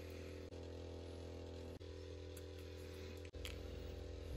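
Airbrush compressor humming steadily at a low level, with a few faint clicks.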